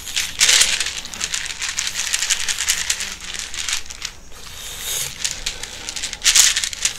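A shaman's bundle shaken and swept over a sick child in a healing ritual, making a dense rustling rattle that comes in bursts, loudest about half a second in and again near the end.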